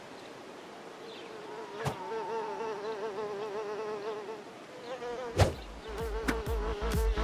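A wavering, insect-like buzzing sound effect, like a fly. About five seconds in there is a sharp hit, and electronic dance music with a heavy beat starts.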